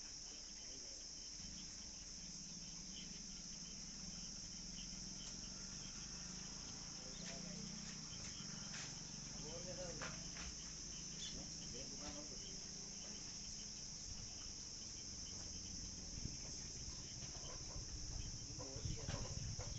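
Steady high-pitched chirring of crickets, with faint distant voices now and then.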